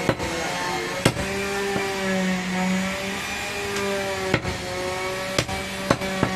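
Butcher's cleaver chopping goat meat and bone on a block: six sharp blows at uneven intervals, over a steady engine-like hum from a machine running nearby.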